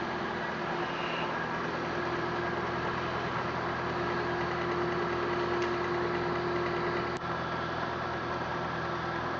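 Electric drive of a Bode 20/VHA rotilting welding positioner running with a steady whine that grows louder, then stops with a click about seven seconds in.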